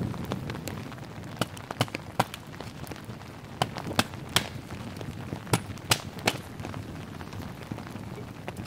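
A small hatchet chopping into a stick of wood to split kindling: sharp chops in three quick sets of three.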